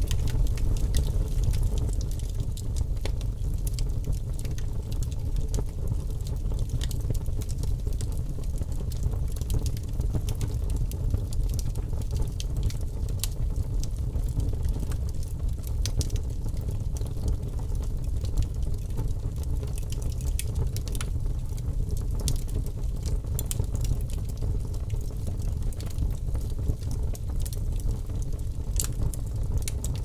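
Split-log bonfire burning, with a steady low rumble and frequent sharp crackles and pops throughout.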